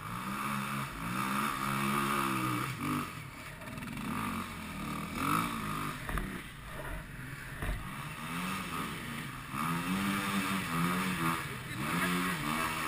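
Off-road dirt bike engines revving up and down as riders climb a slope, the revs rising and falling in repeated surges every few seconds.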